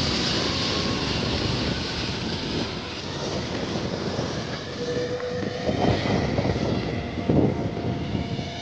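Propeller engine of the FWD 200B unmanned aircraft droning steadily as it flies overhead, with a faint higher whine coming in during the second half.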